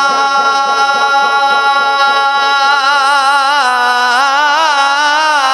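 A man's unaccompanied voice singing a naat, holding one long note with a wavering vibrato, with quick ornamental turns in pitch in the second half.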